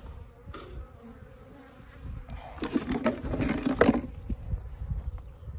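Africanized hybrid honeybees buzzing around their hive box. A louder, noisy stretch with a few clicks comes from a little under halfway through to about four seconds in.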